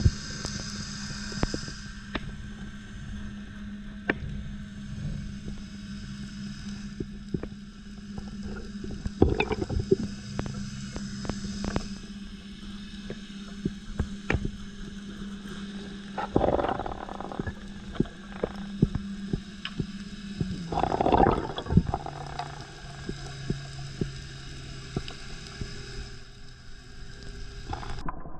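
Underwater ambience: a steady low hum of a boat motor carried through the water, dropping slightly in pitch a little after 20 seconds in, over scattered clicks and crackles. Two louder bubbly rushes come about 16 and 21 seconds in.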